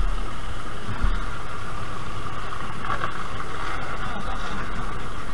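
Vehicle engine idling steadily, with a couple of low thumps about a second apart near the start.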